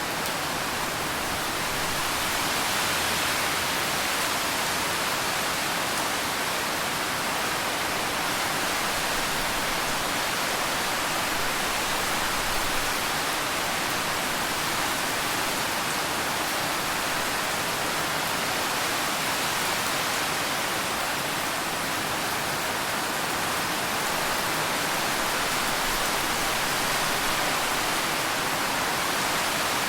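Steady rain falling, a dense, even hiss with no separate drops standing out.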